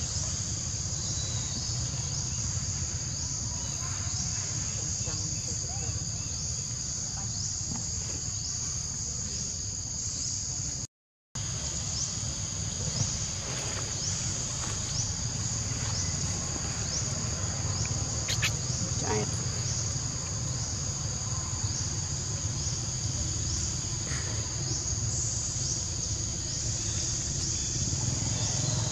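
A steady, high insect chorus with a regular pulsing running through it, over a low steady rumble. The track drops out to silence for a split second near the middle.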